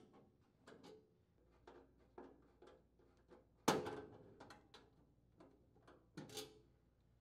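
Nut driver unthreading a hex-head screw from a furnace blower's sheet-metal mounting rail: faint, irregular metallic clicks and ticks, with a louder knock about three and a half seconds in and another about six seconds in.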